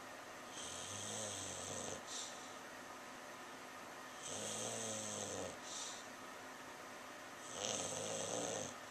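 English Bulldog snoring in deep sleep: three long snores about three and a half seconds apart, each a low rumble with a hiss over it. A short puff of breath follows the first two.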